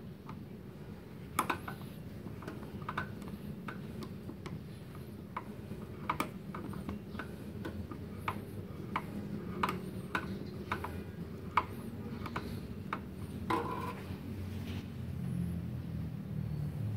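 Gas hose fitting being tightened onto a MIG welder's gas inlet: sharp metal-on-metal clicks and taps, irregular, about one or two a second.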